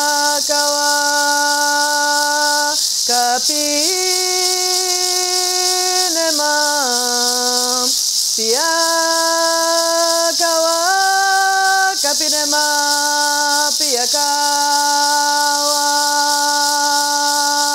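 A woman singing a slow chant in long held notes without words, each lasting a few seconds and stepping up and down in pitch, over the steady hiss of a gourd rattle shaken continuously.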